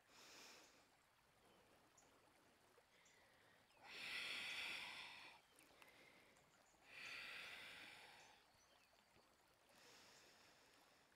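A woman's quiet, audible breathing as she flows through a yoga vinyasa: a short breath at the very start, then two long breaths about four and seven seconds in, each about a second and a half.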